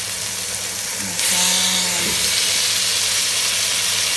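Hot oil, onion and tomato sizzling in a pot as raw meat chunks go in; the sizzle gets suddenly louder about a second in as more pieces hit the pan.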